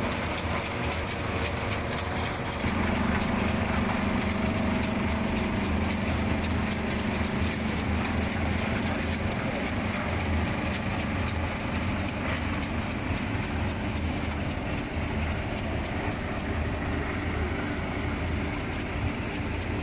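Vibrating shaker conveyors of a french fry production line running, driven by electric vibration motors, with potato strips moving over stainless steel mesh trays. The result is a steady machine hum with a faint clatter, growing a little louder about three seconds in.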